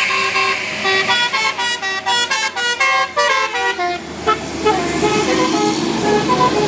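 Bus's Basuri telolet horn, a multi-tone musical horn, playing a quick tune of short notes. The notes are busiest in the first half and thin out to a slower, lower run of notes over vehicle noise.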